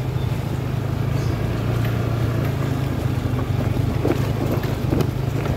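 Motor scooter's small engine running at a steady pace while riding over a rough, unpaved road, with wind noise on the microphone. A couple of faint knocks about four and five seconds in.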